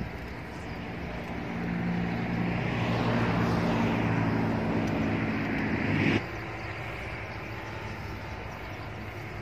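A motor vehicle's engine passing close by, its hum swelling over a few seconds and then cutting off abruptly about six seconds in, over steady outdoor background noise.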